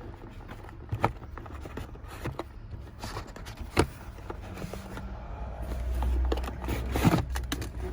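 Packaging being handled while accessories are taken out of a cardboard box: scraping and rustling with three sharp clicks, and a low rumble in the second half.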